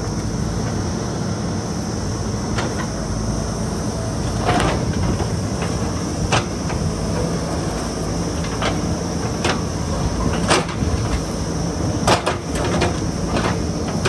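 JCB backhoe loader's diesel engine running steadily while its bucket works large river rocks, with a dozen scattered knocks and clunks of the steel bucket against stone.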